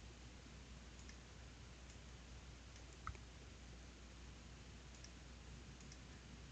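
Near silence: a faint low hum with a few soft computer mouse clicks, one a little louder about three seconds in.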